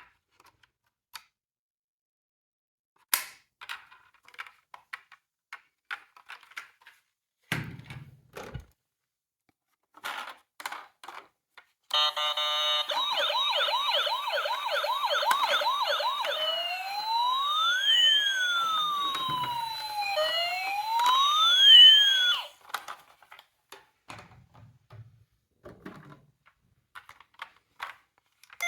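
Small clicks and knocks of plastic toy cars being handled, then a battery toy emergency vehicle's electronic siren sounds for about ten seconds. It starts as a fast warble, then a few seconds later turns into a slow rising and falling wail with two tones crossing. It cuts off suddenly, and the clicking resumes.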